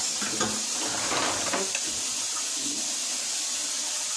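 Water running steadily from a kitchen sink tap, an even hiss, with a few light clinks in the first two seconds.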